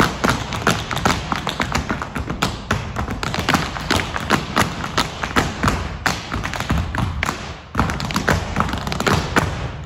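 Boomwhacker plastic tubes struck in a fast, driving rhythm by several players, with hollow knocks and taps as tube hits tube and the floor. The rhythm breaks off for a moment about three-quarters of the way through, then comes back in with a sharp hit.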